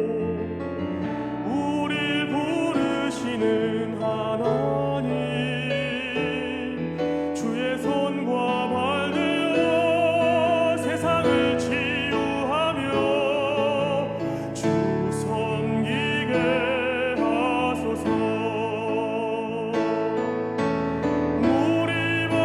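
Church worship song: a vibrato melody line over piano accompaniment, with music throughout.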